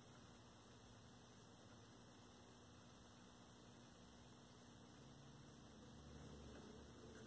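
Faint, steady mains hum from a 1932 Aztec cathedral tube radio chassis powered up on a variac, growing slightly louder near the end. The hum comes through with no station or signal, a sign that the set is powered but not yet receiving.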